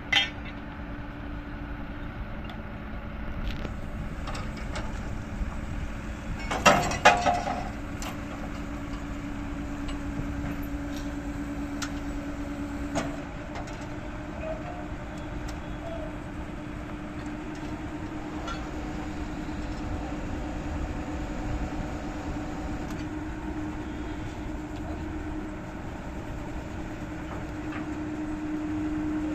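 Truck-mounted borewell drilling rig running steadily with a held engine hum, which gets a little louder near the end. Sharp metal clanks come at the very start, and a loud cluster of them comes about seven seconds in.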